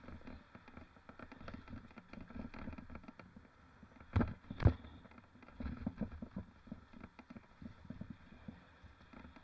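Mountain bike rattling and knocking as it is ridden over rough ground, with two hard thumps about half a second apart a little past four seconds in.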